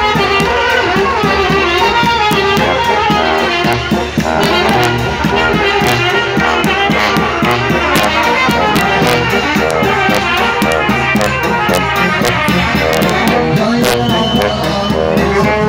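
Serbian brass band playing a lively tune: trumpet and tenor horns over a bass tuba, with a bass drum and its mounted cymbal keeping the beat.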